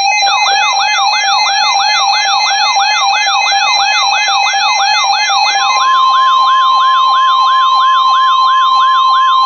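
Electronic emergency alert tones signalling an incoming weather warning: a steady tone under a rapid rising, siren-like whoop that repeats nearly three times a second. A second, higher steady tone joins about six seconds in.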